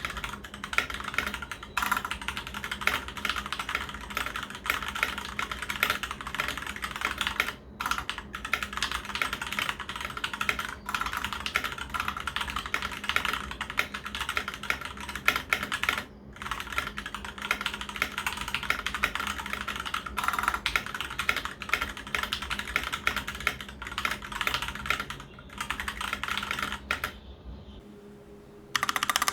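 Continuous fast typing on a Dierya DK61SE 60% mechanical keyboard with TMKB Brown tactile switches and thin PBT keycaps, a dense run of key clacks. The typing pauses briefly a couple of times and stops for about a second and a half near the end before resuming.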